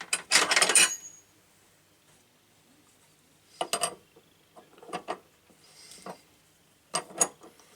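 Metal tap parts and hand tools clinking against each other as they are handled, in four short groups of clinks a second or more apart.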